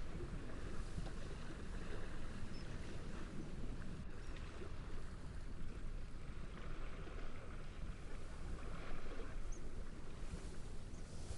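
Steady wind rushing through reeds, with gentle waves washing in slow swells. A few faint, short high chirps sit on top.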